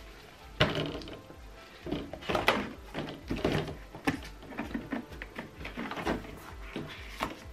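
A thick silicone mat being laid and pressed flat in a clear plastic box by gloved hands: irregular rustling, slapping and light knocks of the mat against the plastic walls and floor.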